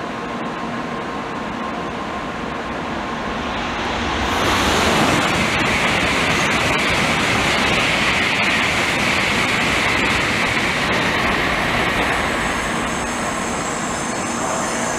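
N700-series Shinkansen train pulling into a station platform and slowing. A rushing noise swells about four seconds in as the nose draws level, then eases toward the end, when a faint high whine comes in.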